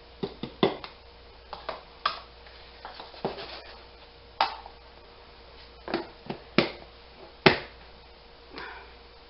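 Irregular hard plastic clicks and knocks as a homemade plastic funnel is lifted off a glass jar and set into a plastic tub of powdered milk, then the tub's plastic lid is pressed on, giving the loudest snap near the end.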